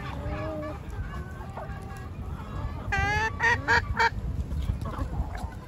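Backyard chickens clucking softly as they feed, with a run of four loud, nasal calls from one bird about three seconds in.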